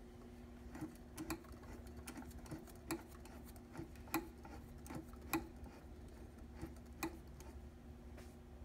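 Brother Nouvelle PQ-1500S sewing machine mechanism ticking slowly, about two sharp ticks a second, over a faint steady hum; the ticks stop about seven seconds in.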